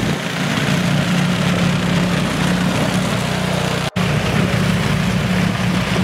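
Walk-behind snowblower engine running steadily under load as it clears a sidewalk, with the hiss of snow being thrown from the chute. The sound drops out for an instant about two-thirds of the way through, then carries on as before.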